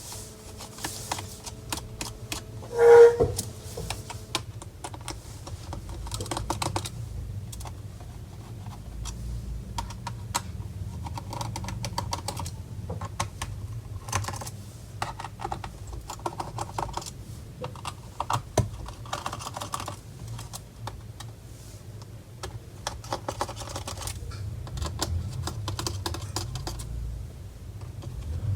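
A screwdriver undoing the small screws on the bottom panel of an HP EliteBook 850 G5 laptop: scattered small metal clicks and ticks, with short scratchy stretches as the screws turn out. A brief, louder pitched squeak comes about three seconds in.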